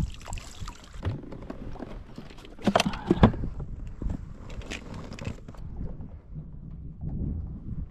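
Knocks and rattles of a landing net and gear being handled in a fishing kayak, with a cluster of louder sharp knocks about three seconds in.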